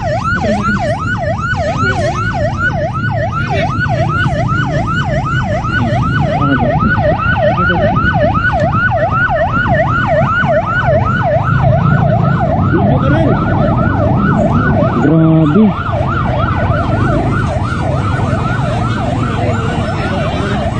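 Police vehicle siren on a fast yelp: a rising-and-falling wail at about three sweeps a second, steady and loud throughout. A short lower-pitched sound cuts in briefly about fifteen seconds in.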